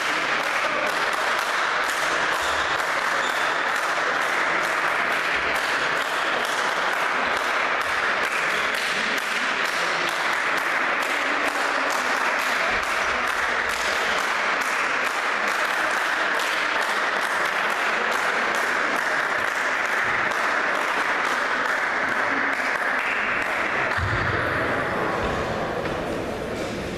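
Spectators applauding in a large hall, a dense, sustained clatter of clapping with a steady clap rhythm running through it. It fades near the end.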